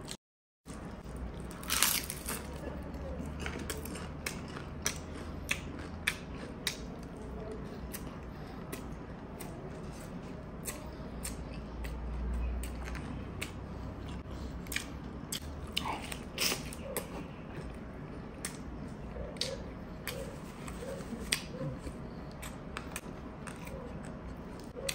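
Close-miked eating: biting and chewing, with many sharp, crisp clicks and crunches scattered throughout, the loudest about two seconds in.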